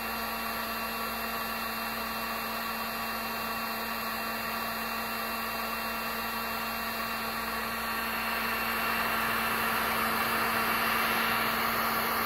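Heat gun running on its high setting with a steady whir, blowing on a plastic telephone connector until it bubbles and softens. It grows a little louder about two-thirds of the way through.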